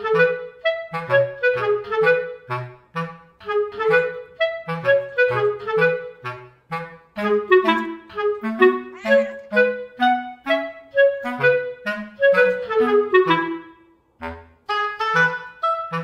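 Background music: a light tune of short, separate notes led by a woodwind instrument over a bass line, with a brief pause about fourteen seconds in.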